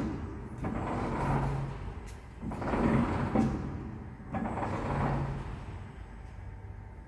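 LESHAN six-cavity electric extrusion blow moulding machine cycling on a test run. There are about four rushing, hissing bursts a second or so long as its mould carriages and air-driven blow heads move, a short low hum comes with two of them, and the sound eases off near the end.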